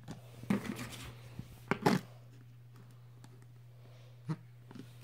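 Handling of keypad cell phones on a wooden floor: scattered clicks, taps and knocks as buttons are pressed and the phones are moved, the loudest knocks about two seconds in. A faint steady low hum runs underneath.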